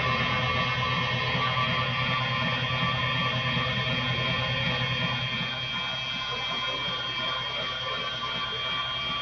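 Electric stand mixer running steadily, its beater whipping mashed potatoes, with a constant motor whine and hum.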